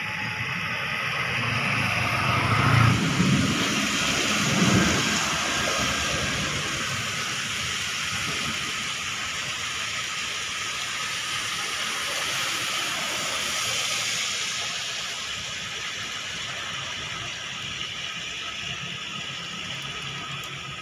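Traffic on a rain-soaked road: cars and motorbikes passing, tyres hissing on the wet asphalt in a steady wash of noise. A louder low rumble swells a few seconds in.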